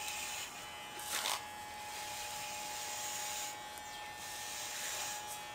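Electric hair clippers running steadily with the guard off, shaving a head close to the scalp, with a brief louder pass about a second in.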